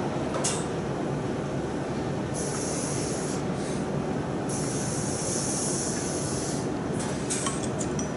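Air-powered load balancer hoist hissing as its pendant buttons raise and lower a hooked load: two longer hisses of escaping air in the middle and short spurts near the start and end, over a steady factory hum.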